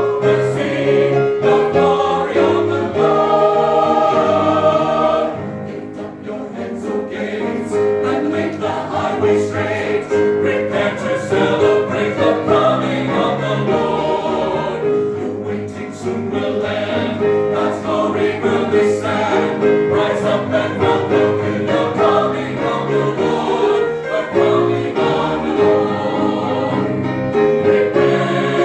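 A church chancel choir singing a sacred Christmas anthem. It softens briefly about six seconds in.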